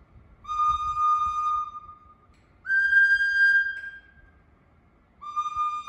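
Recorder blown in three held notes: a lower one, a higher one, then the lower one again near the end. The lower note comes from the longer tube, the higher from the shorter.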